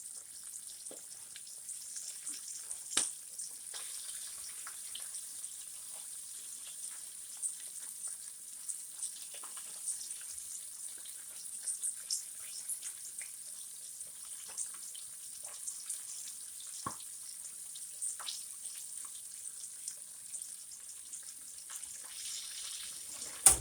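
Flour-coated chicken pieces deep-frying in hot vegetable oil: a steady sizzle with scattered crackles and pops. There is a single sharp knock near the end.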